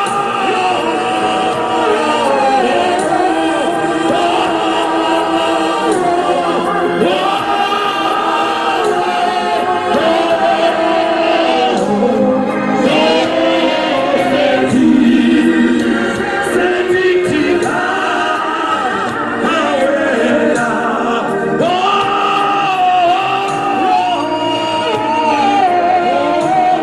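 A choir of many voices singing a gospel song together at a steady, full level.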